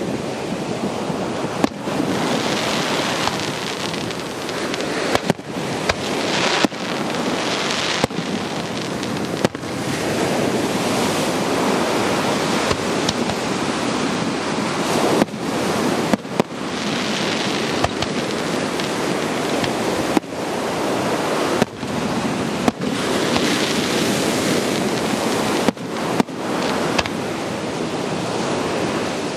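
Fireworks shells going off: sharp bangs at irregular intervals, a second to several seconds apart, over a steady rush of ocean surf.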